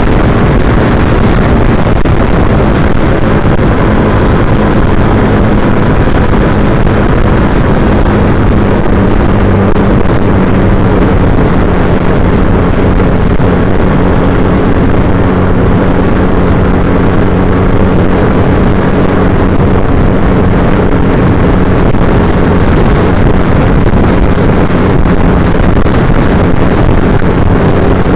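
Loud wind rushing over the microphone of a motorcycle at cruising speed, with the steady running of a 2010 Triumph Bonneville T100's 865 cc air-cooled parallel-twin engine underneath.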